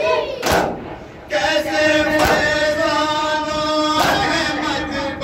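A group of men chanting a nauha, a Muharram lament, in unison. The chant breaks off briefly about a second in, and sharp slaps land every second or two.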